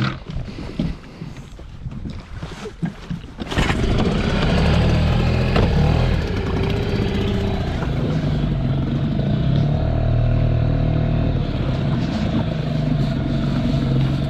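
Small outboard motor on an inflatable dinghy starting about three and a half seconds in, after some knocks from handling, then running steadily and pushing the dinghy along, its pitch wavering slightly.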